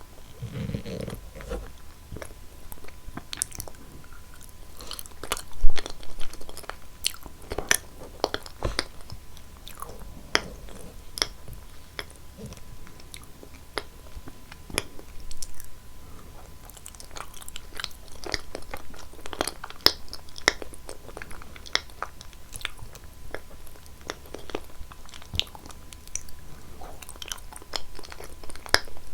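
Close-miked eating of cheese foods: a person biting and chewing, with many short sharp clicks of mouth and teeth and one loud bite a little under six seconds in.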